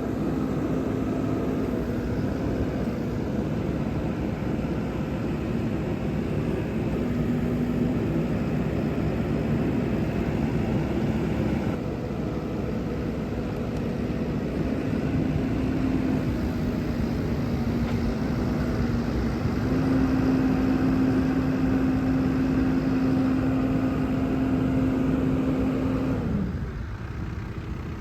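New Holland B95 backhoe's diesel engine running steadily. Its pitch and level rise for several seconds in the last third, then drop away near the end.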